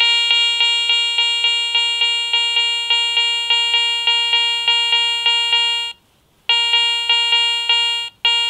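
Garrett ACE 400i metal detector sounding its target tone, a buzzy beep pulsing about four times a second, as it picks up a 5 Mark coin in an air test. The tone breaks off about six seconds in, resumes, and stops briefly again near the end.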